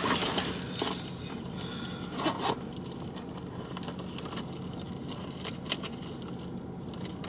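Purse being rummaged through by hand: rustling with scattered small clicks and clinks of the things inside, a little louder about two seconds in.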